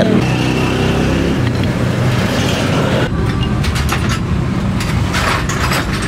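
Steady rumble of a motor vehicle engine or road traffic, with a few light clicks near the end.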